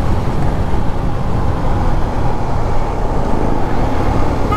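Motorcycle riding at highway speed: a steady, loud rush of wind, engine and road noise.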